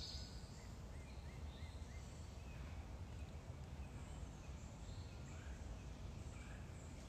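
Quiet outdoor ambience with small birds chirping faintly in the distance: a quick run of four short chirps about a second in, then scattered fainter calls.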